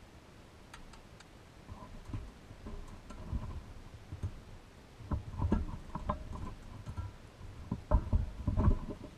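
Small metal parts being fitted by gloved hands into a painted pressed-steel Tonka fire truck body: light metallic clicks and taps at first, then from about five seconds in louder knocks and handling thumps, some with a brief metallic ring.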